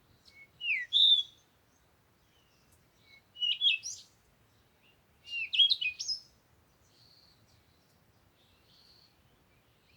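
A songbird singing three short, loud phrases of quick whistled notes in the first six seconds, followed by a few faint, thin, buzzy calls near the end.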